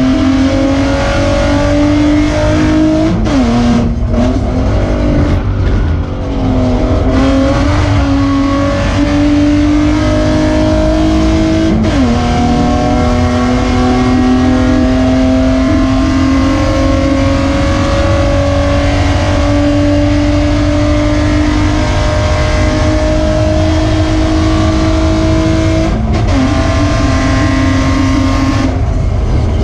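BMW E36 Spec3 race car's inline-six engine under hard throttle, heard from inside the stripped cockpit, its pitch climbing through the revs with an upshift drop about twelve seconds in and again near the end. A brief lift and dip comes a few seconds in. The exhaust runs with a blown muffler.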